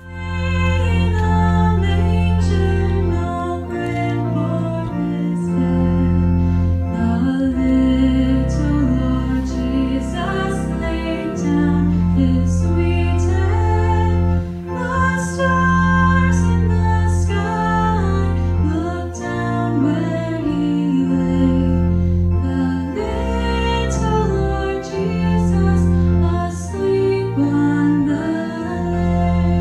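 A woman singing a hymn with organ accompaniment, the organ holding sustained low notes under the sung melody.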